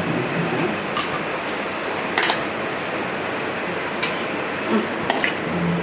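A few short light clinks, like a serving spoon against plates, over a steady background hiss.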